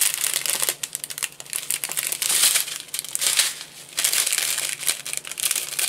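Strips of sealed clear plastic packets of diamond-painting drills crinkling unevenly as hands handle and turn them over.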